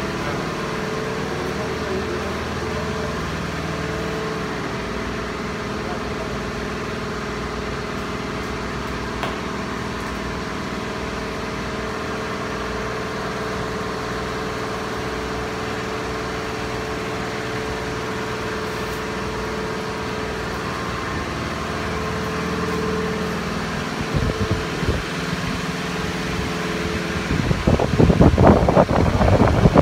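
Steady mechanical hum with a few held tones, from a fan or motor running in the workshop. From about 24 seconds in, irregular rumbling handling noise breaks in, growing louder near the end as the phone is moved under the car.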